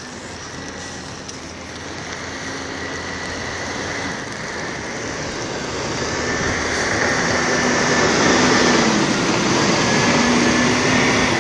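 Snowplow truck driving up and passing on a wet, slushy street: engine and tyre noise grow steadily louder and are loudest in the last few seconds.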